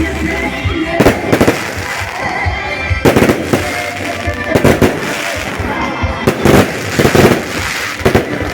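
Fireworks bursting in a rapid, irregular string of bangs and crackles.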